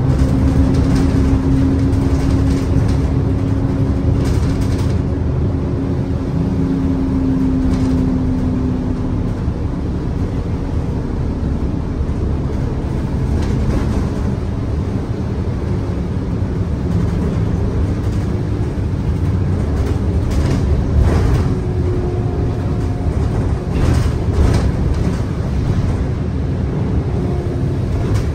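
Single-decker bus on the move, heard from inside the passenger saloon: steady engine and road rumble with occasional rattles, and a humming whine over the first several seconds that fades away.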